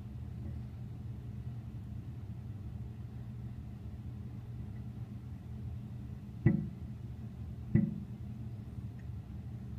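Two distant firework bursts, sharp booms a little over a second apart, over a steady low hum.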